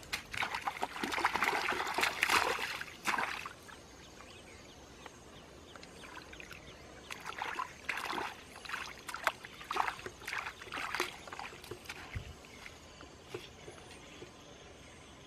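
Bare feet splashing through shallow muddy water for the first three seconds or so. After a quieter stretch, shorter, broken splashes follow from about seven to eleven seconds in as hands grope in the water.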